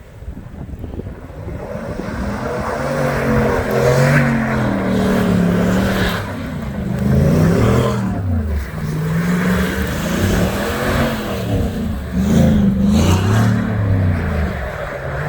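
Chevy Silverado Trail Boss with a muffler-deleted exhaust, its engine revving up and down again and again as the truck spins donuts, growing louder about two seconds in.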